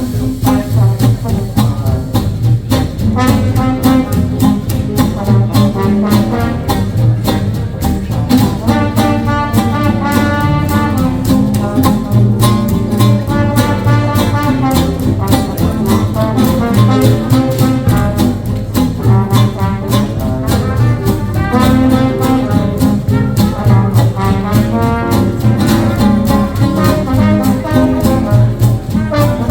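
Live hot jazz swing band playing an instrumental passage, horns carrying the melody over a steady, even beat.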